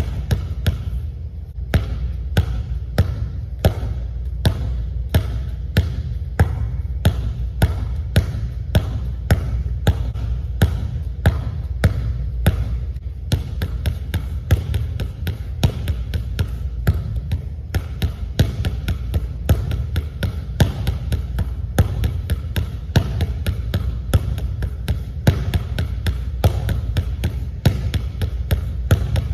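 Basketball bounced hard on a hardwood gym floor in a quick, even rhythm of about two to three bounces a second, as crossover dribbles, with a steady low hum underneath.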